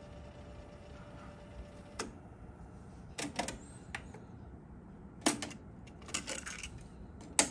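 Sony TC-RX55 cassette deck: the faint whir of the tape fast-winding stops with a click about two seconds in. Then come the clicks of its transport buttons, a loud clack as the cassette door opens, a plastic rattle as the cassette is handled, and a sharp click near the end.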